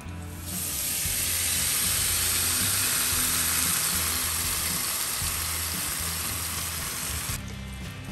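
Oiled flour tortilla frying in a hot non-stick pan: a loud, even sizzle that sets in about half a second in and cuts off suddenly near the end, with background music underneath.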